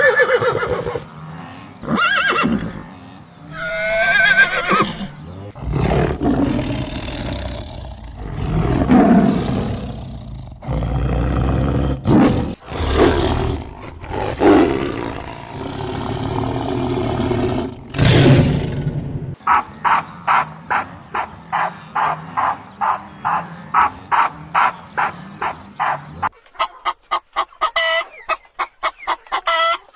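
A run of animal calls: a few short pitched calls at first, then a tiger roaring and growling in long loud bouts for about fourteen seconds. After that comes a fast, even string of short calls, about four a second, which changes to a different, higher pulsed sound near the end.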